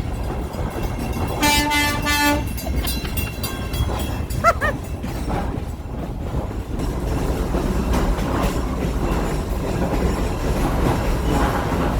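Heritage excursion train running along the track with a steady low rumble, its locomotive horn sounding one short blast about a second and a half in.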